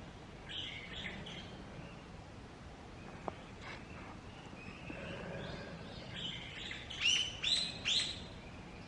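Bird calls: a few calls about half a second in, then three loud, short calls in quick succession near the end.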